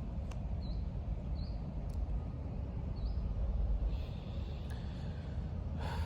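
Short bird chirps a second or two apart, each a quick up-and-down note, over a steady low rumble on the microphone, with a few light clicks.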